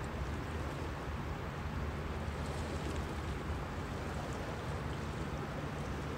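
Steady seaside ambience on a pebble beach: a low rumble under a soft hiss, from wind and small waves at the shore.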